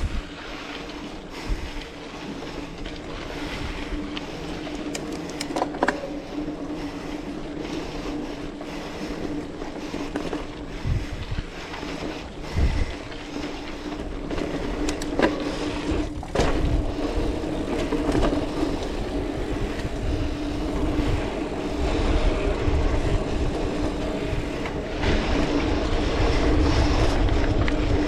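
Specialized Rockhopper mountain bike ridden on a dirt trail: tyres rolling, with the chain and frame rattling and knocking over bumps and wind rumbling on the mic. It grows louder in the second half.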